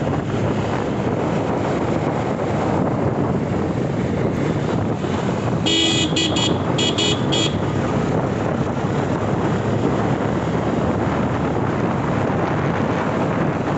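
Steady wind buffeting the microphone and road noise from a two-wheeler riding along a street, with a vehicle horn sounding a quick series of about five short toots around the middle.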